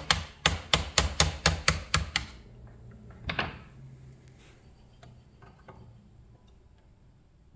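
Rapid light tapping, about five taps a second, of a small punch working the bottom pin out of a scale-model crane's boom cylinder mount. The tapping stops about two seconds in, followed by one short handling scrape and a few faint clicks.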